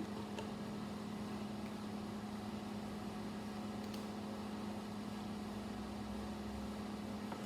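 Steady low mechanical hum with an even hiss, as from a fan or appliance running, with a few faint clicks.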